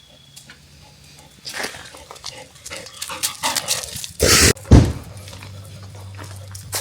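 A dog close to the microphone, with scattered rustling and a very loud bump against the microphone about four seconds in.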